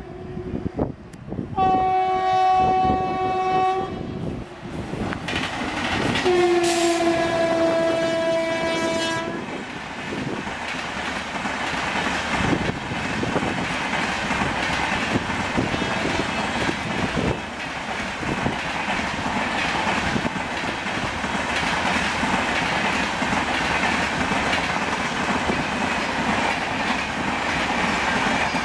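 WAP-7 electric locomotive sounding its horn in two blasts, about two and three seconds long, the second a little lower in pitch as it comes by. Then the express's coaches roll past, wheels clattering over the rail joints.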